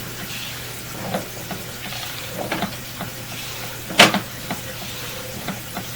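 Sewer inspection camera and its push cable scraping and clicking inside a drain pipe, with a sharp knock about four seconds in, over a steady low hum.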